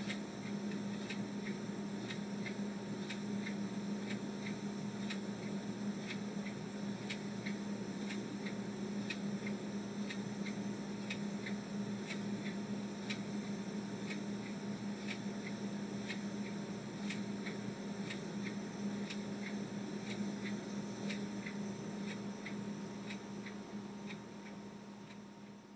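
Small quartz desk clock ticking steadily and evenly, over a steady low hum in the room; the sound fades out near the end.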